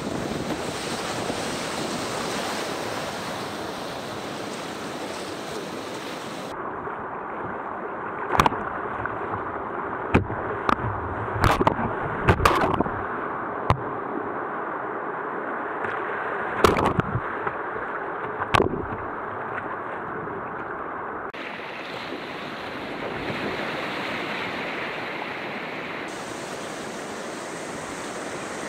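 Whitewater rapids rushing and splashing around a kayak, heard close to the hull. Through a duller-sounding stretch in the middle come about nine sharp knocks and slaps, bunched together for a few seconds and then two more later on.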